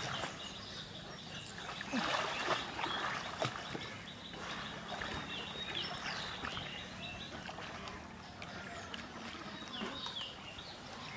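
Pond water splashing and sloshing around a person swimming through it, with short bird chirps now and then.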